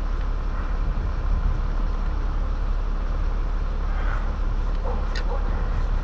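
Steady low background rumble, with a few faint short sounds about four to five seconds in.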